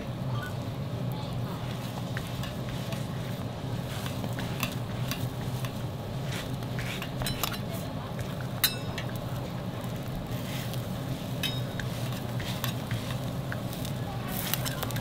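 Chapssal hotteok (sweet glutinous-rice pancakes) sizzling in oil on a flat griddle, with a metal press and spatula clinking and scraping against the hot plate, one sharper clink a little past the middle. A steady low hum runs underneath.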